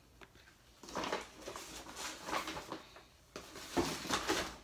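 Handling noise from groceries being moved about: rustling and soft knocks, with a thump a little under four seconds in.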